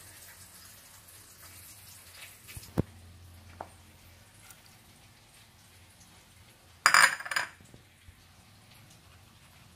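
A couple of light knocks of steel kitchenware, then about seven seconds in a short, loud sizzle lasting about half a second as hot oil with fried garlic is poured through a metal strainer onto raw tuna.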